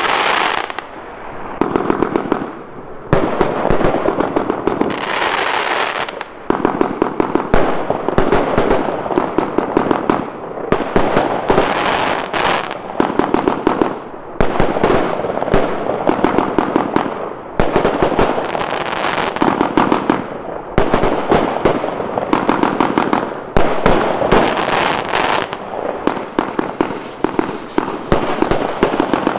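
Lesli "Dark Water" firework compound battery firing a rapid, unbroken barrage of shots and crackling, many reports a second, with hissing stretches between volleys.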